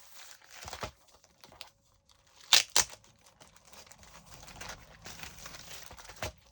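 Packaging of a diamond painting kit crinkling and rustling as it is opened and handled, with a couple of sharp crackles about two and a half seconds in.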